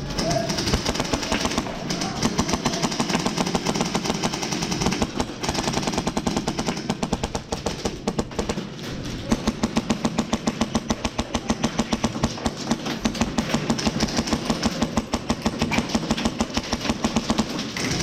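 Airsoft electric guns firing long full-auto bursts, a rapid, even rattle of shots that pauses briefly a few times.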